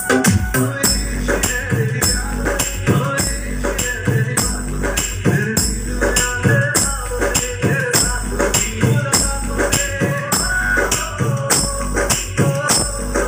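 Loud music with heavy, long-held bass notes and a steady beat of sharp percussion hits.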